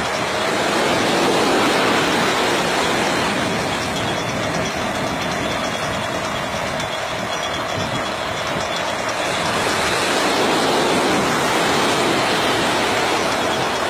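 Steady machinery running, a loud even noise with a constant hum through it.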